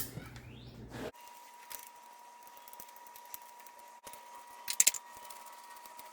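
Light metallic clicks and clinks of bicycle parts and tools being handled, with two sharp clinks just before five seconds in. A faint steady high hum runs underneath.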